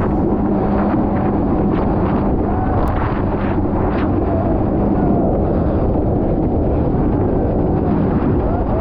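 Steady, loud rumble of wind buffeting the microphone over a running motor.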